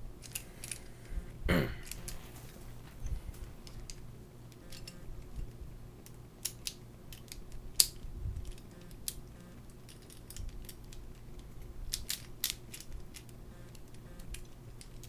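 Plastic puzzle-cube pieces clicking and snapping as they are handled and fitted into a 3x3x4 cube, with scattered light clicks and a sharper snap about eight seconds in.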